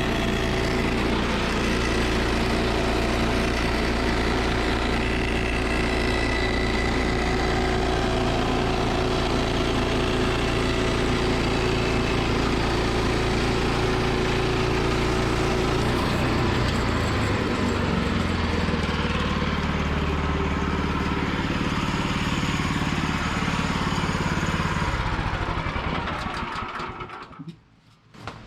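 Woodland Mills bandsaw sawmill's engine running steadily as the mill saws through a large log. Its pitch shifts about two-thirds of the way in, then it winds down and stops near the end.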